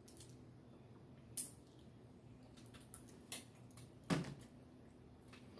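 Mouth sounds of someone eating ribs: a few short smacks and clicks while chewing, the loudest about four seconds in, over a faint steady room hum.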